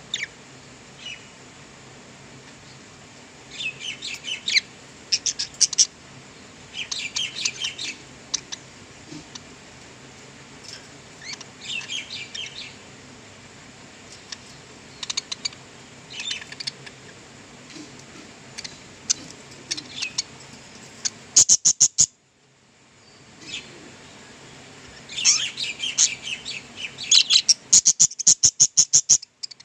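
Budgerigars chirping and chattering in clusters of quick high chirps, broken by a short silence just after the middle, then a fast run of sharp chirps near the end.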